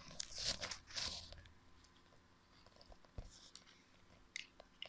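Packaging crinkling and rustling as the router is handled, loudest in the first second and a half, then fainter rustles with a few light clicks and a soft knock about three seconds in.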